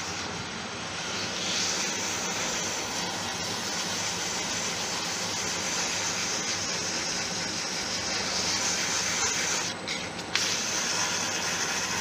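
Abrasive paper rubbing on a deer antler pen blank spinning on a wood lathe: a steady hiss, with the lathe running underneath. The paper lifts off briefly about ten seconds in. The antler is being sanded while thin CA glue is still wet, so the dust fills the marrow pores.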